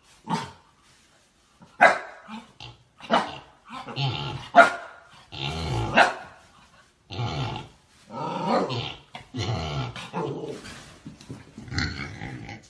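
A dog barking, with sharp barks roughly every second and a half, mixed with longer rough growling stretches that take over in the second half.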